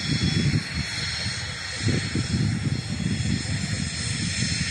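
Wind buffeting the microphone in irregular low gusts, over a faint steady high-pitched whine from the distant F-35A jets' engines on the runway.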